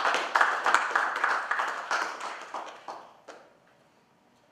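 Audience applauding: many hands clapping, which thins out and dies away after about three seconds, ending with one last clap.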